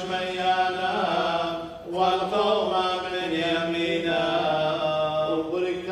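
Male clergy chanting a melodic Syriac liturgical hymn of the Assyrian Church of the East, with long held notes and a steady low note beneath. The phrases break briefly for breath about two seconds in and again near the end.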